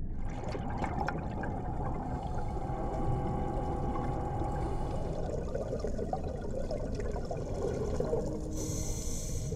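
Underwater ambience: a steady, muffled rush of water with bubbling running through it, and a brief brighter hiss near the end.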